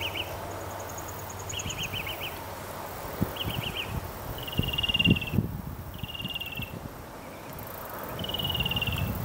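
Short, high, buzzy trills from a small calling animal, repeated about every second or two, with a few soft low knocks around the middle.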